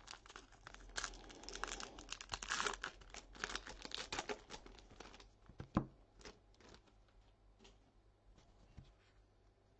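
Foil wrapper of a Topps baseball card pack torn open and crinkled for several seconds, then lighter rustles and clicks as the cards are handled, with one sharp tap a little before the middle.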